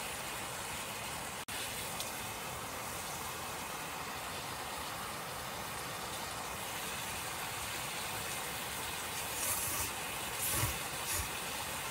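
Steady hiss of a gas camp stove burning under a cast-iron Dutch oven of steaming yakisoba, with a momentary dropout about one and a half seconds in and a few short knocks and rustles near the end.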